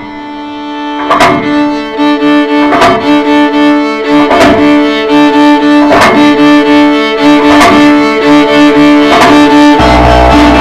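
Instrumental music: sustained bowed-string tones over a steady beat of sharp strikes a little under a second apart, with a heavy bass layer coming in near the end.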